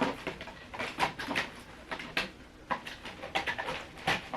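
Cardboard and plastic packaging of a figure box being handled: an irregular run of short rustles, scrapes and clicks as a taped-in base is worked loose.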